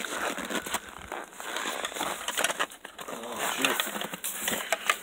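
Chickens pecking and scratching in dry straw bedding: a busy run of crackling, rustling clicks.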